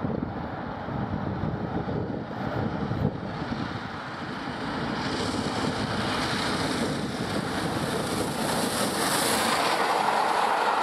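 Wind rumbling on the microphone, then the approach of 60163 Tornado, a Peppercorn A1 4-6-2 steam locomotive, running through at speed, its noise growing steadily louder from about halfway as it nears and passes.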